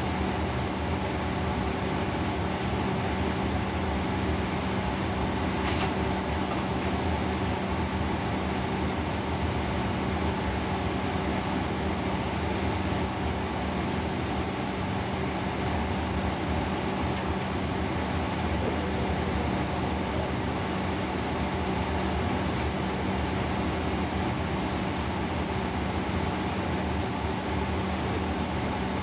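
Steady roar of a commercial kitchen exhaust hood fan and gas range, with a low steady hum. Over it, a high-pitched tone sweeps down and back up about every second and a half.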